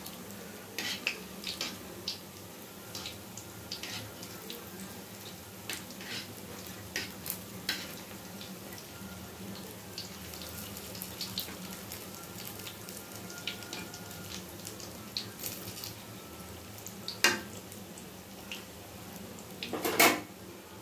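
Rice-flour bondas deep-frying in oil in a kadai over medium heat: a steady sizzle with frequent crackles and pops. Two louder metallic knocks come near the end, about three seconds apart, as the kadai is handled.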